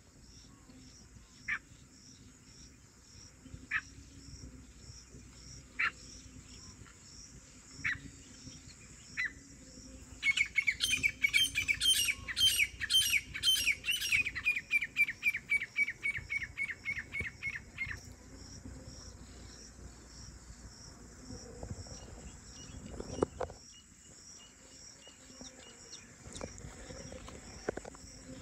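Grey francolin calling: a few single sharp notes a couple of seconds apart, then a long, fast run of repeated high notes that fall in pitch and slow over about eight seconds before stopping. Insects pulse steadily behind, and there is a brief thump late on.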